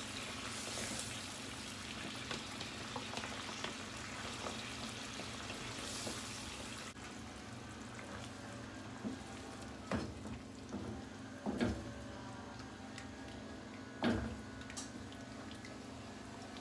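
Cream sauce with sliced mushrooms sizzling and bubbling in a non-stick frying pan as a wooden spoon stirs it. About seven seconds in the hiss drops away to a quieter simmer, broken by a few knocks of the spoon against the pan.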